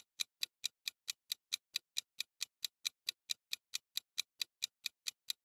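Countdown timer sound effect: a steady, fast clock ticking, about four to five ticks a second, marking the time to answer a quiz question.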